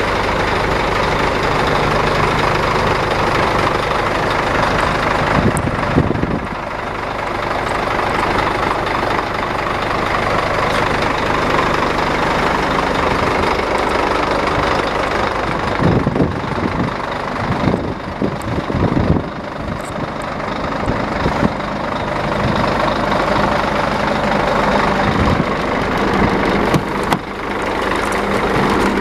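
Diesel engine of a Scania eight-wheel tipper truck idling steadily, with a few short knocks and clunks about six seconds in and again around the middle.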